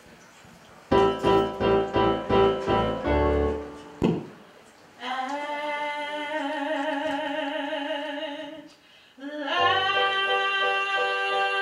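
Electronic keyboard playing an introduction of short repeated chords, then long sustained chords. A woman sings long held notes with vibrato over them.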